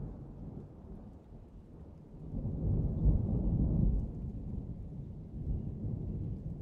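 Thunder rumbling in a summer rainstorm: a deep rumble that swells about two seconds in, is loudest for a second or two, then slowly dies away, with rain falling throughout.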